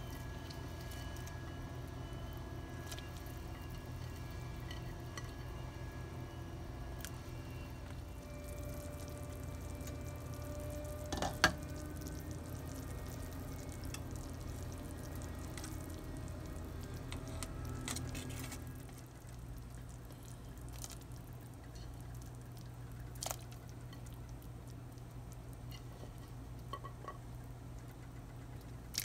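Vegetable pieces dropped and set into a stainless steel pot of simmering water: small splashes, drips and light clinks against the pot, with one sharp knock about eleven seconds in, over a steady low hum.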